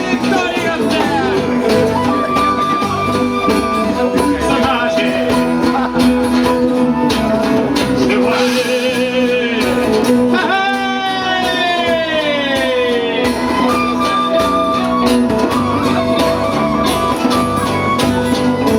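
A live band playing instrumental music: sustained notes over a steady low drone, with a long downward-sliding tone about ten seconds in.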